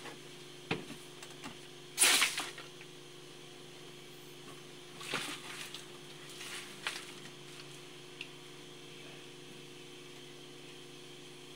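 Sporadic scraping and rustling while wet soil is dug out around a buried leaking water pipe. The loudest is a sharp scrape about two seconds in, with a faint steady hum underneath.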